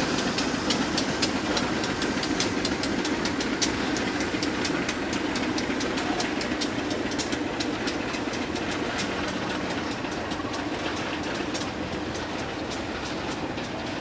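A rail vehicle rolling along the track, with a steady rumble and a rapid, irregular run of sharp clicks from the wheels on the rails. The clicks thin out and the sound fades gradually.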